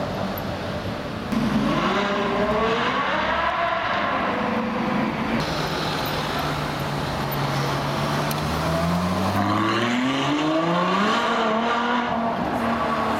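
Ferrari 812 Superfast's naturally aspirated V12 accelerating hard twice, its pitch rising steeply through the revs each time, with a steadier lower engine tone between the two pulls.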